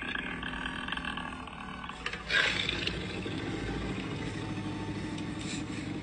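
Koala bellowing: a low, rough, belching run of grunts, with a sudden louder start a little over two seconds in. This is the male koala's mating call.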